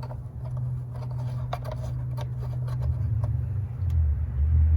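Small light clicks and taps of bolts and hands working on a plastic engine cover, over a steady low hum. A low rumble swells near the end.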